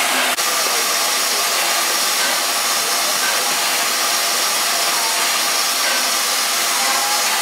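Steam hissing steadily from a steam locomotive standing in steam.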